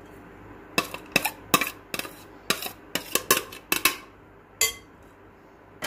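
A metal spoon clinking against a plate and a glass mixing bowl: about a dozen quick, irregular taps with a slight ring over roughly four seconds. The taps come as chopped coriander is knocked off the plate into the bowl.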